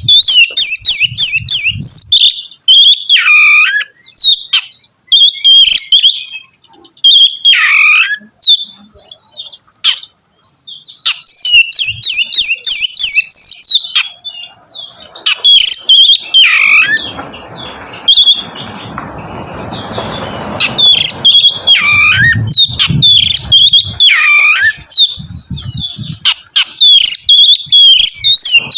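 Oriental magpie-robin (kacer) singing loudly in rapid, varied phrases of high chirps and down-sweeping whistles, repeated with short pauses between them. A rough hiss swells up in the middle and fades away.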